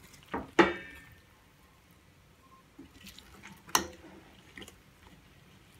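Metal ladle knocking and clinking against a stainless steel pot as cooked biryani rice is turned over, with soft sounds of the rice moving in between. The sharpest knocks, each with a short ring, come about half a second in and again near four seconds in.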